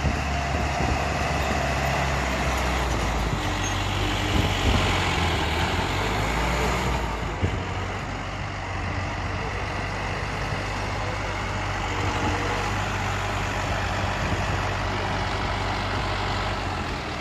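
MR70 tractor's diesel engine running steadily under load while pulling a drill seeder, with a constant low hum and a rattling haze over it.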